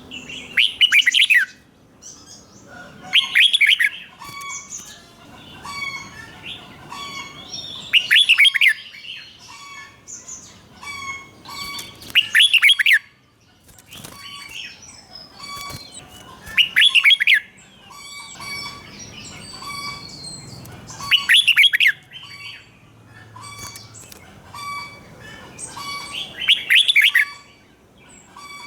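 Red-whiskered bulbul singing: seven loud song phrases of about a second each, repeated every four to five seconds. Softer chirps and short notes fill the gaps between them.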